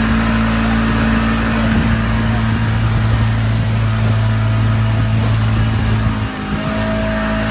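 Tour boat's engine running steadily under way, with a steady low hum; the hum and level dip briefly about six seconds in, then pick up again.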